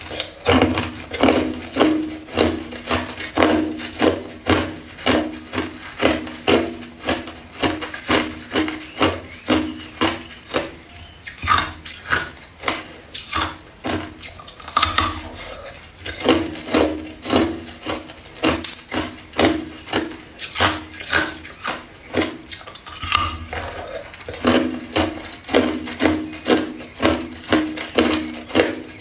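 Hard clear ice being crunched between the teeth in steady chewing, about two crunches a second, with a couple of short pauses.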